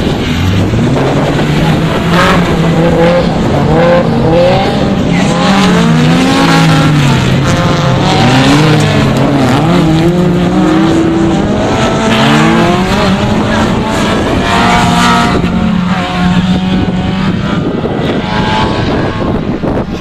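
Autocross race cars' engines revving hard, their pitch climbing and dropping again and again through gear changes, with more than one engine heard at once around the middle.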